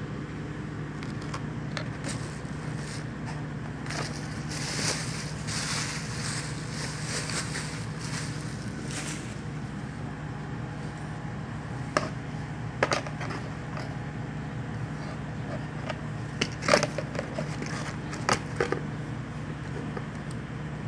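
Handling of an auto-darkening welding helmet and its packaging: rustling for a few seconds, then several sharp plastic clicks and knocks, over a steady low hum.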